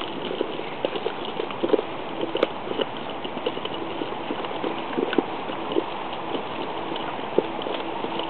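Terrier puppies eating together at feeding time: a busy, irregular run of small clicks and smacks from their mouths and the food in the bowl.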